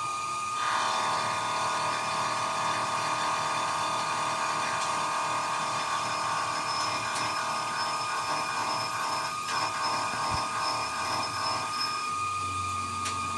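A workshop power tool's electric motor running at a steady speed with a high whine, which grows fuller and louder about half a second in.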